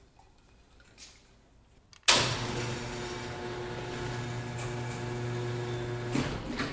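Electric fuel pump running at key-on for the Holley Sniper EFI: a steady hum that starts suddenly about two seconds in, runs about four seconds and cuts off. This is the pump's priming cycle, pressurising the fuel lines.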